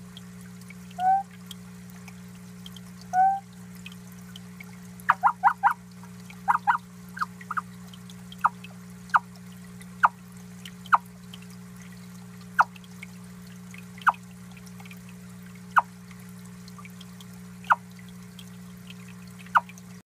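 Water trickling in a terrarium over a steady low hum, with short bright plinks of dripping water. Two longer rising plinks come about a second and three seconds in, then a quick run of them around five to seven seconds, then single plinks every second or two.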